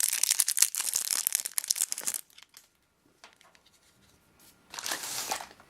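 Crinkly packaging being handled and torn open by hand while unwrapping a small toy badge. It runs dense and crackly for about two seconds, then stops, and there is a second short burst near the end.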